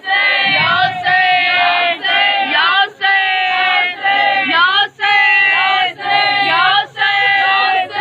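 A crowd of mourners chanting a lament together, many voices in short rhythmic phrases that rise at their ends, with brief breaks between them.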